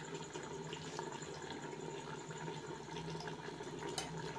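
Faint, steady sizzling and bubbling of beef, tomatoes and cooking oil in a pot on the stove, with a low hum underneath.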